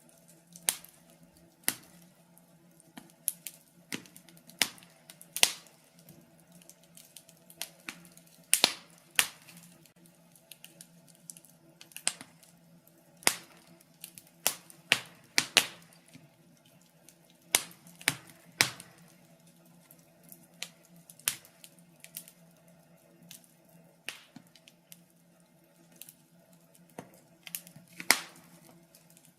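Wood fire burning in a fireplace, crackling with sharp, irregular pops, some singly and some in quick clusters.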